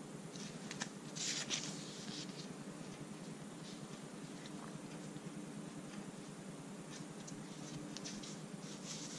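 Hands handling a rolled polyester tow strap and its paper label: soft rustling and scraping, loudest about a second in and again near the end, over a faint steady hum.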